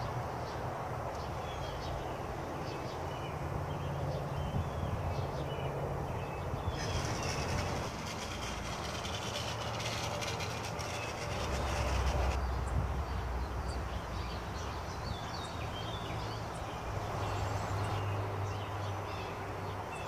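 Outdoor ambience: a low engine rumble that shifts in pitch and swells to its loudest about twelve seconds in, with birds chirping now and then.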